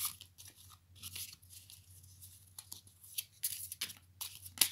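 A deck of oracle cards being shuffled by hand: irregular papery slides and flicks as cards are pulled from the deck, with sharper snaps at the start and just before the end.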